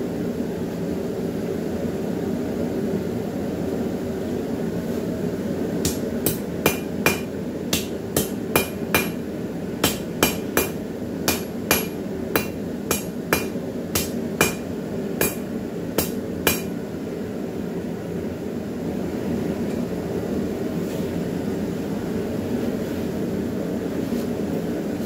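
Hand hammer striking a red-hot 3/8-inch square steel bar on an anvil to straighten it: about twenty ringing blows at roughly two a second, starting about six seconds in and stopping about ten seconds later. A forge runs with a steady rushing noise underneath throughout.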